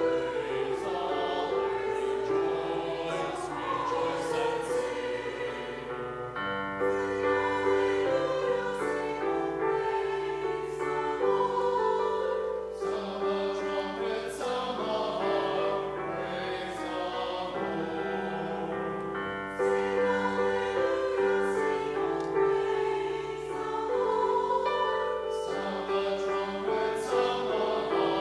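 A mixed choir of men's and women's voices singing in harmony, in phrases with short breaths between them.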